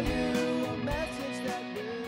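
Guitar music from the end of a song, strummed, growing steadily quieter as it fades out.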